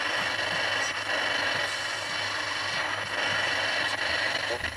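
Speaker of a 1956 GE P-720 AM transistor radio giving out steady static hiss with a low buzz and no station coming through. The owner blames this interference on the camera filming close to the radio.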